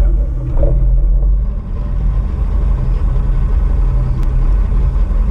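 Boat motor idling with a steady low rumble.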